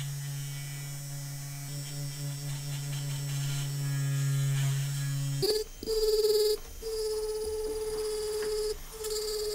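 Handheld rotary tool spinning a felt polishing bob against a silver watch case, running with a steady low hum. About five seconds in it switches to a higher whine, which dips out briefly twice.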